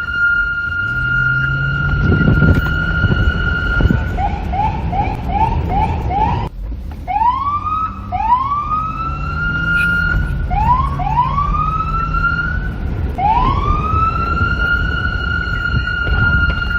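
Electronic police car siren: a steady held tone, then a quick string of short rising yelps at about two a second, then after a brief break several slow rising wails that climb and settle into a held tone, over a low rumble.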